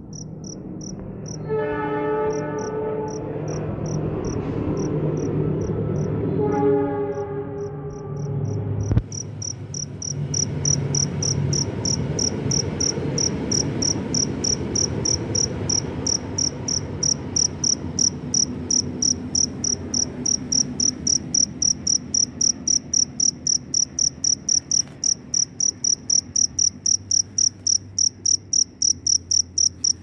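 A male black field cricket calling, a high, pulsed chirp repeated several times a second: the calling song by which it seeks a mate. The chirping turns steady and louder from about nine seconds in. Twice in the first eight seconds a horn sounds, each blast lasting about a second and a half.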